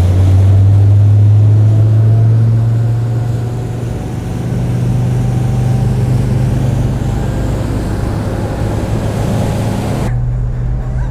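Twin Volvo Penta D13 diesel engines driving a motor yacht at full throttle: a loud, steady low drone over rushing wind and water noise. The drone eases slightly about four seconds in.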